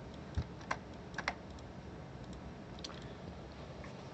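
A handful of scattered computer keyboard keystrokes, with a dull knock about half a second in.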